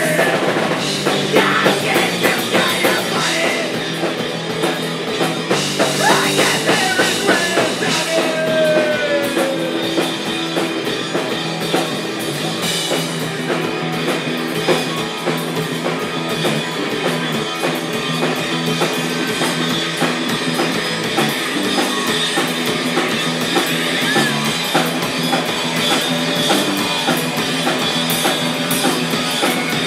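Live rock band playing: electric guitar and drum kit, loud and steady.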